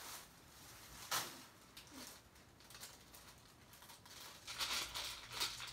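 Plastic candy wrapper crinkling as it is handled and opened, faint at first with one sharp tick about a second in, then louder and busier near the end.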